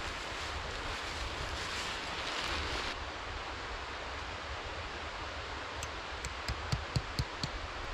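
Heavy canvas rustling and swishing as it is dragged and spread out over snow, stopping abruptly about three seconds in. Near the end comes a quick run of about eight sharp clicks or knocks.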